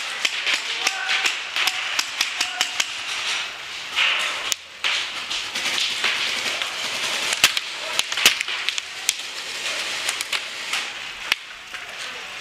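Paintball markers firing: an irregular scatter of sharp pops, some in quick strings, over a steady hiss.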